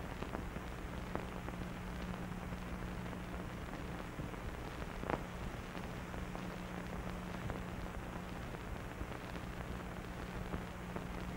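Steady hiss and light crackle of an old film soundtrack, with a faint low hum and a few soft clicks, the plainest about five seconds in.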